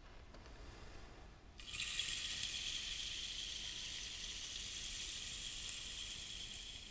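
A steady, high rattle from percussion in the live stage accompaniment, starting suddenly about two seconds in and fading away near the end.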